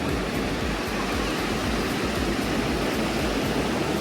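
Ocean surf rushing steadily on the shore, with wind rumbling on the microphone.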